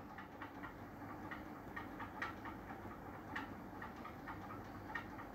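Faint room tone with soft, irregular ticks.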